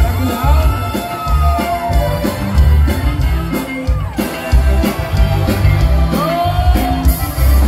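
Live Tejano band music: a male lead vocal over a steady beat of drums and bass, with accordion and electric guitar. Late on, the singer holds a long note.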